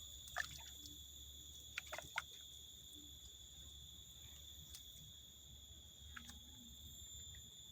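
Crickets chirping in a steady high-pitched drone, with a few brief faint chirps or clicks, the clearest about two seconds in.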